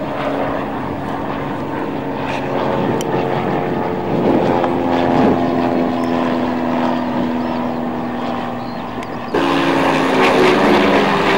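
Propeller engine of a high-wing single-engine light aircraft droning steadily overhead, its pitch dropping slightly about halfway through as it passes. About nine seconds in, the sound jumps abruptly to a louder, rougher engine noise.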